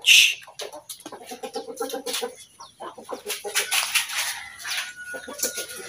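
Chickens clucking, with a loud, short squawk right at the start, amid scattered rustling and clicks.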